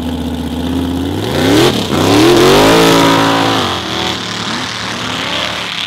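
Hot-rod drag car's V8 on open headers running at the start line, then revving and launching hard: the engine note climbs in pitch and loudness, peaks about two to three seconds in, then drops and fades through a few shorter rising sweeps as the car pulls away.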